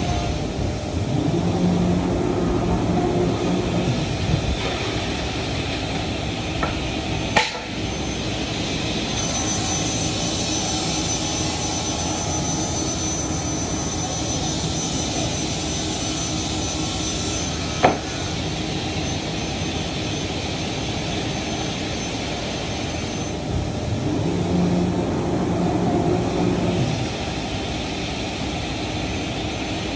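Steady running noise of woodworking shop machinery, with a deeper machine hum swelling for a few seconds near the start and again near the end, and two sharp knocks, one about a third of the way in and one past the middle.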